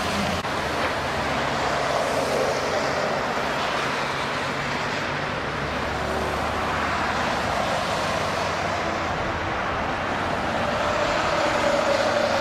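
Steady freeway traffic noise: passing vehicles and tyres on the road, with a steady hum coming up near the end.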